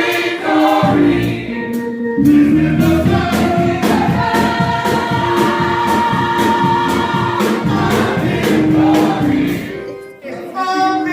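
Gospel choir singing in harmony, holding long chords. The sound drops away briefly near the end, and the choir comes back in.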